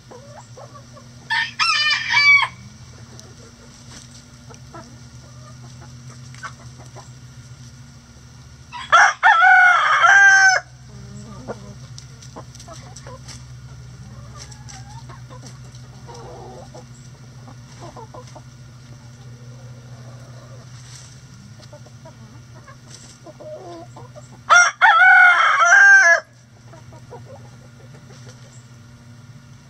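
A rooster crows three times: a short crow just after the start, then two longer ones about nine and twenty-five seconds in. Hens cluck softly in between.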